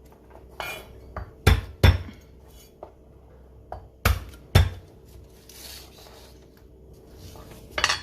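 Kitchen utensils knocking and clinking on a cutting board and dishes during food preparation: a few sharp knocks, mostly in pairs about half a second apart, with a soft rustle in between.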